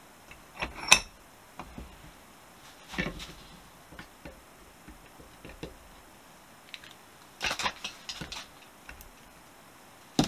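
Screwdriver prying and scraping at the copper casing of a small VW coolant thermo switch clamped in a steel bench vise: scattered metallic clicks and scrapes, the sharpest about a second in, with a cluster of scraping a few seconds before the end.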